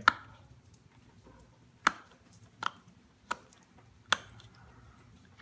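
Five or six sharp clicks at irregular intervals, about a second apart, as small flakes snap off a stone flake being notched.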